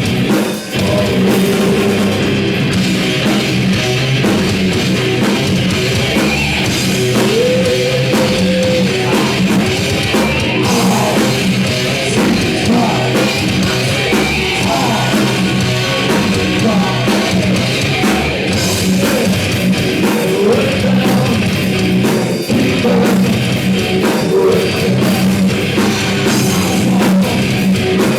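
Heavy metal band playing live: distorted electric guitars, bass and drum kit, loud and continuous.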